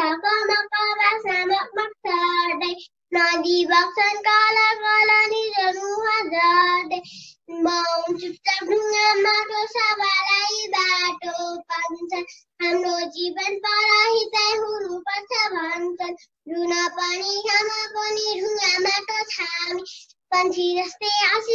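A young girl singing a Nepali poem to a simple tune, line by line with short breaths between phrases.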